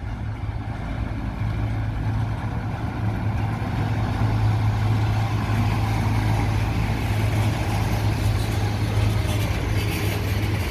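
Vintage electric train passing slowly close by, a steady low hum with rolling noise that grows louder as it comes alongside.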